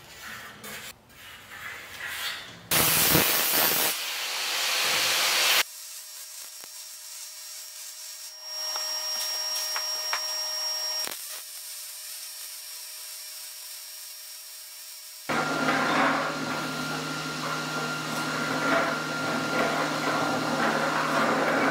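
A few light knocks, then an angle grinder grinding galvanized steel for about three seconds. A Millermatic 211 MIG welder follows, tacking the caster plates to the steel cart base. A steady hum with crackle runs through the last six seconds.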